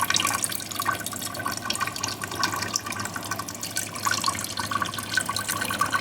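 Water trickling and splashing steadily from a small tabletop waterfall fountain, with many small drips falling into the basin below.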